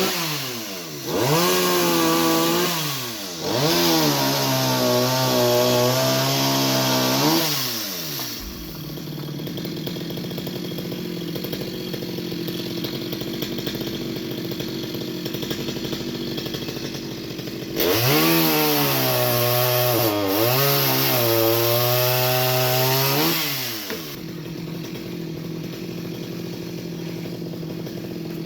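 Chainsaw revved hard three times, its pitch wavering and sagging under load as it cuts into wood, then dropping back to a steady idle between spells.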